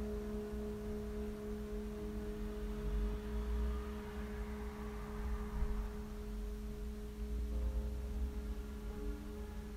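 A steady drone of two held tones, one low and one higher, over a low rumble, with a few short soft tones near the end.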